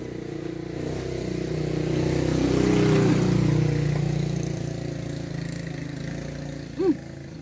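Engine of a passing motor vehicle, growing louder to a peak about three seconds in and then fading away.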